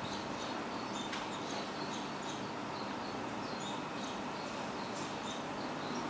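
Barn swallow nestlings, seven days old, giving short, high cheeps again and again: begging calls while a parent is at the mud nest. A steady background noise runs underneath.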